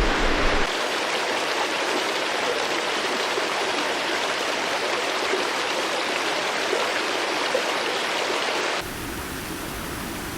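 Rushing floodwater, a steady noise of flowing water. It changes abruptly twice: the deep low rumble drops away about a second in, and near the end it turns quieter and hissier.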